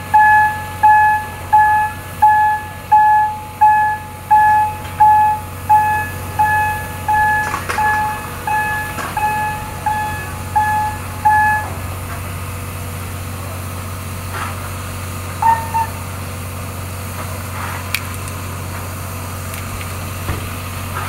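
Railway turntable's warning beeper sounding a repeated single-pitch beep, about one and a half beeps a second, while the turntable rotates the steam locomotive; the beeping stops about 12 seconds in. A steady low hum runs underneath, with a couple of faint clicks later on.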